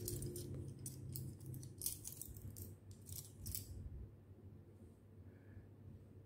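Metal ear-cleaning tools (picks and tweezers held together in the hand) clicking and clinking lightly against each other, a quick run of small ticks that dies away after about four seconds.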